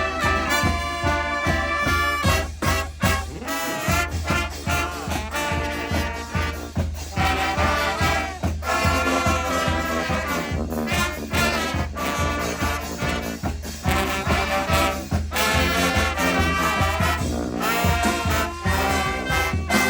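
Live street brass band playing an instrumental tune: trumpets and trombones in harmony over a strong bass line and a steady drumbeat.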